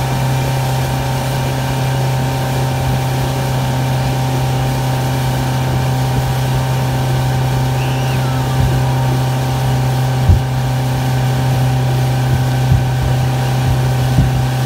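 Honda 75 hp four-stroke outboard running steadily at towing speed, a constant drone over the rush of wind and water. A brief thump about ten seconds in.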